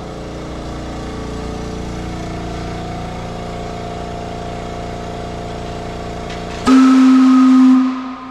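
An air compressor runs with a steady hum, charging a restored factory whistle from the Charles City tractor plant. About six and a half seconds in the whistle sounds one loud, low blast for about a second, then tails off.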